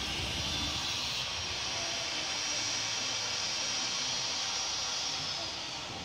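A van driving past on the street, a steady rushing noise with a faint high whine that fades near the end.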